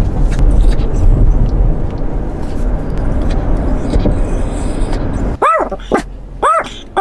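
Steady low rumble of car road noise inside the cabin, cutting off abruptly about five seconds in; then a dog whines twice in short high cries that rise and fall.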